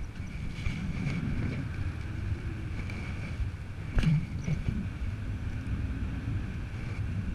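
Wind buffeting the microphone of a camera on a paraglider in flight: a steady, fluttering low rumble. A single sharp knock comes about four seconds in.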